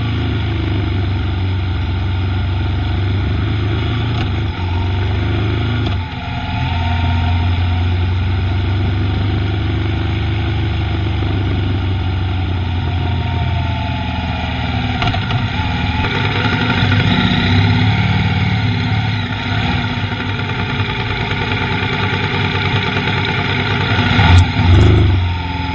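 Motorcycle engine running at road speed, heard through an onboard camera with wind noise, its note shifting a few times. A couple of sharp bumps come near the end.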